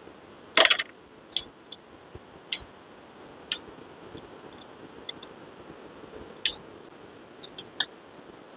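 Sharp plastic clicks and clacks of a hand-worked 3D-printed gripper, its jaws opening and closing and printed parts knocking on the printer's bed. About half a dozen separate clicks, the loudest cluster about half a second in.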